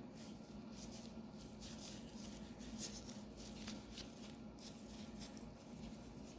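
Faint, irregular soft rubbing and patting as fingers press pastry dough into small metal boat-tart molds, over a steady low hum.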